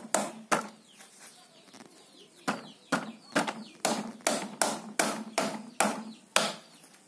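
A hand-held pebble knocking against the stones of a gravel bed in sharp clacks: two near the start, then after a short pause about ten more at roughly two a second.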